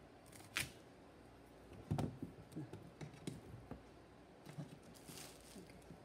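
A knife cutting and paring chunks of sweet gourd squash, giving faint scattered clicks and scrapes, with a louder knock about two seconds in.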